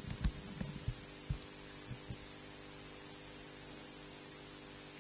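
Steady electrical hum and hiss of the church's microphone and sound feed, with a few short low thumps in the first two seconds or so.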